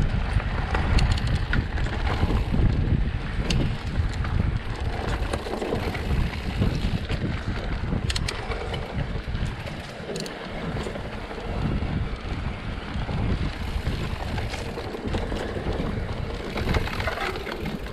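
Mountain bike riding a dirt trail at speed: wind buffeting the ride camera's microphone over the rolling noise of the tyres, with scattered short clicks and rattles from the bike and the ground.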